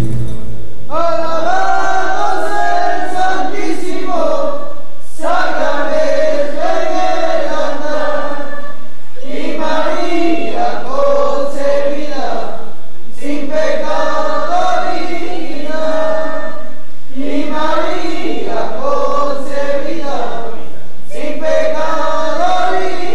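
Guitar music stops about a second in, and a choir takes over, singing in phrases of about four seconds with short breaks between them.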